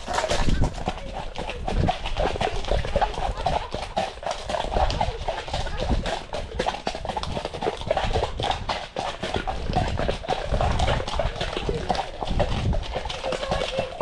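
Hoofbeats of several horses moving along a wet, muddy track, a continuous run of dull hoof strikes.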